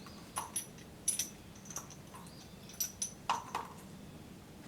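Sharp metallic clicks and clinks, about ten at irregular spacing, from a Dutch Beaumont bolt-action rifle and its brass cartridges being handled as it is readied for a function test.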